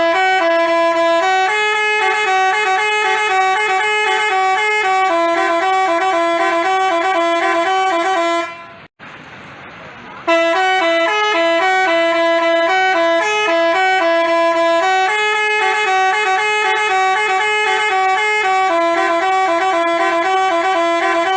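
Basuri telolet horn, a multi-tone bus horn, playing a repeating tune in stepped notes. It breaks off partway through for under two seconds, then starts the tune again.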